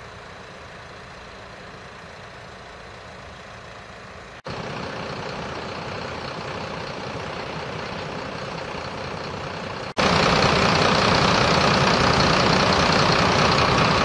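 Steady vehicle engine idling with outdoor noise and no clear rhythm. It cuts abruptly twice, stepping up in level about four seconds in and again, much louder, about ten seconds in.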